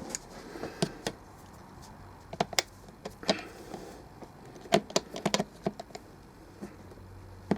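Pliers clicking against a small metal nut and the speaker's plastic casing as the nut on the volume control is loosened: scattered sharp clicks, some in quick clusters of two or three.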